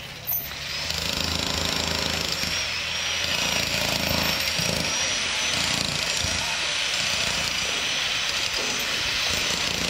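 A motorised machine, like a power tool, starts up about half a second in and then runs steadily with a high-pitched whine over a hissing noise.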